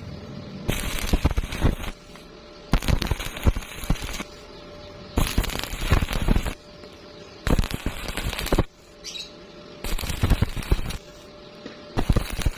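Stick-welding arc crackling in short bursts of about a second, struck and broken again about five times in a steady rhythm, the start-stop technique used to bridge a wide gap on a vertical joint.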